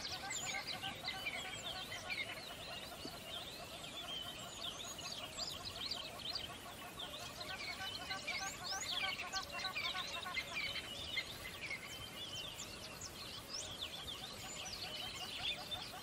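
A dense chorus of many birds singing at once: overlapping quick chirps and sliding whistles that go on without a break.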